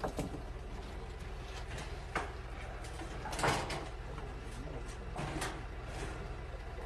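A few knocks and clunks over a steady low rumble: one right at the start, one about two seconds in, the loudest and longest about halfway through, and a last one a little after five seconds.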